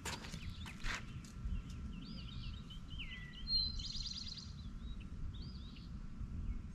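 Songbirds chirping and trilling over a steady low outdoor rumble, with a couple of soft knocks in the first second.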